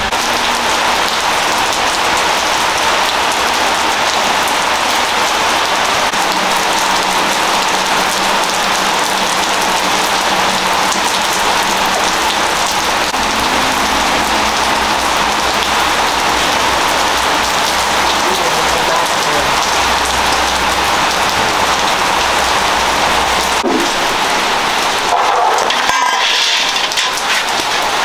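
Steady sizzle of food frying in hot oil. A sharp click comes near the end, followed by a brief clatter.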